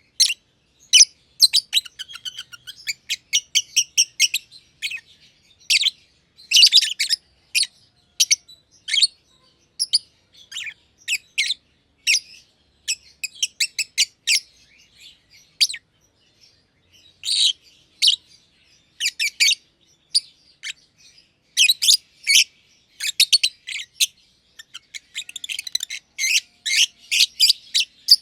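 Two black-masked lovebirds chirping: quick high-pitched chirps and fast chirring runs, in bursts with short pauses between.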